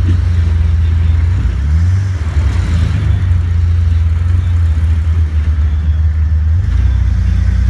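Jeep TJ engine running at low revs while rock crawling, a steady low rumble whose pitch steps up and down a couple of times as the driver works the throttle.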